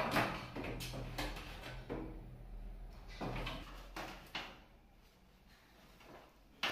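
Plastic knocks, rattles and scraping from handling the mesh air filter and front panel of a Samsung split AC indoor unit, irregular and sparser in the second half.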